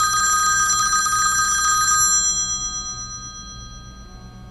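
Telephone ringing with a fast trill, cutting off about two seconds in and fading away.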